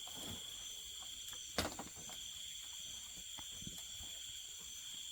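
Steady night-time insect chorus, crickets trilling in two high, unbroken bands, with faint scattered rustles and one sharp knock about a second and a half in.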